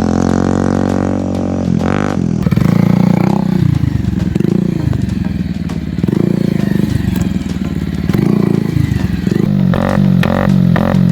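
Motorcycle with a modified exhaust revving, its engine note rising and falling several times. Near the end, music with a steady beat comes in.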